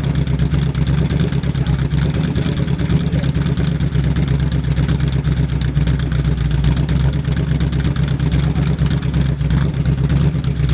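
1970 AMX's V8 engine running steadily on its first run after sitting eleven years unstarted.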